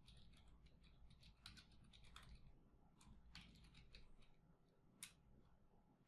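Faint computer keyboard typing: short key clicks in quick, uneven runs. One sharper keystroke about five seconds in is the Enter key starting a new line.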